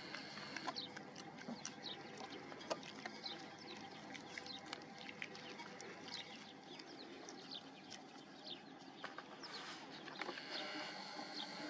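Puppies lapping water from a bowl, with many short, high, falling squeaks throughout.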